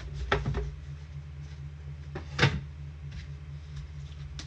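Trading cards and their packaging being handled on a table: a few short knocks and taps, the loudest about two and a half seconds in, over a steady low hum.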